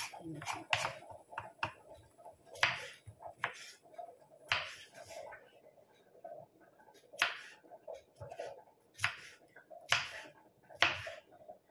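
Kitchen knife slicing a peeled cucumber on a wooden cutting board: irregular sharp taps as the blade meets the board, with a quieter pause around the middle.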